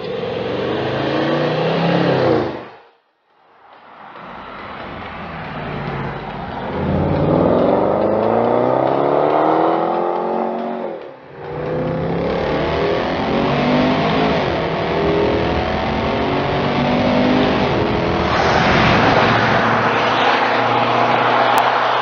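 Range Rover SVAutobiography's supercharged V8 exhaust under hard acceleration. The revs climb steeply and drop back with each upshift. The sound breaks off briefly about three seconds in and dips again around eleven seconds, and it is loudest near the end as the car passes close by.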